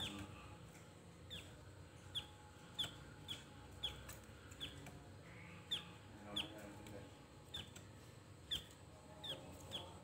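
Javan grey-throated white-eye (opior jawa) calling: a string of about fourteen short, sharp notes, each dropping in pitch, repeated irregularly about once or twice a second.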